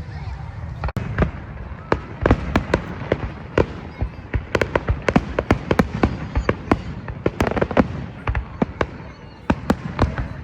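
Fireworks going off: a rapid, irregular string of sharp bangs and crackles, several a second, over a steady low rumble.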